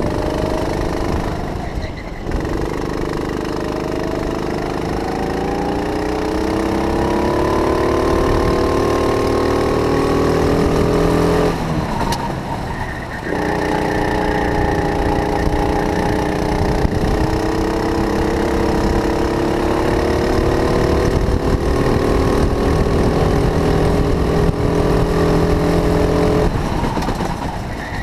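Go-kart engine running hard under the driver, its pitch climbing steadily as the kart accelerates down the track. It drops off briefly about halfway through and again near the end as the throttle is lifted for corners, then picks up again.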